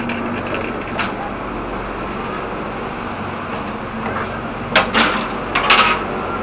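Steady hum and rumble inside a standing passenger train carriage, with a sharp click about a second in and a few louder clattering knocks near the end.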